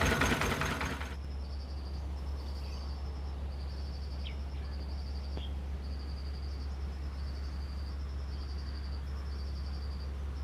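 Insects, likely crickets, chirping in short high-pitched trains that repeat about once a second over a steady low hum, with a couple of brief bird-like chirps near the middle. It opens with about a second of louder engine noise that cuts off suddenly.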